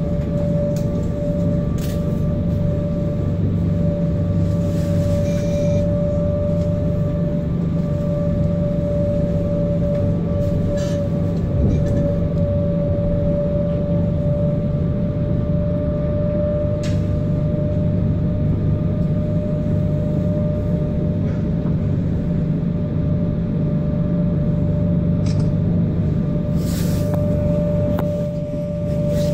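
Inside a DB class 425 electric multiple unit running at a steady speed: a continuous rumble of the wheels and running gear on the track, with a steady whine over it and a few scattered clicks.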